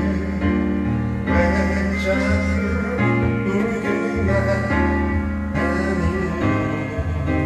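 Karaoke backing track of a Korean ballad playing through a karaoke room's speakers, with a man singing along into the microphone.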